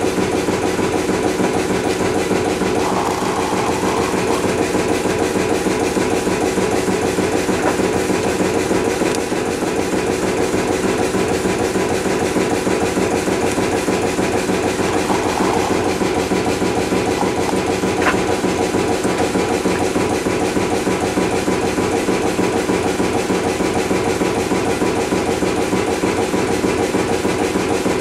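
Kromhout 2H3 marine diesel engine running steadily under way, its exhaust beating fast and even from the stack.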